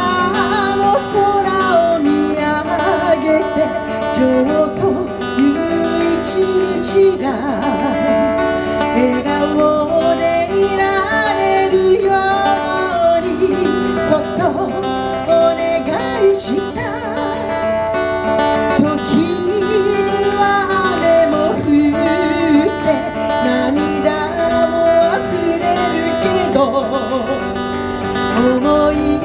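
A woman singing a song to acoustic guitar accompaniment, amplified through a PA system.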